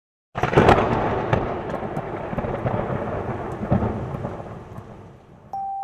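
A sudden loud crash, then a rolling rumble with scattered cracks, fading away over about five seconds, like a thunderclap. A piano note comes in near the end.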